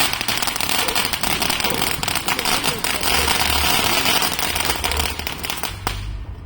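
Firework burning with a steady, dense crackle and hiss of many tiny pops; it cuts off about six seconds in as the firework burns out.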